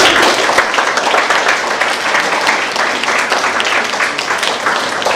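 Audience applauding, a dense run of many people clapping.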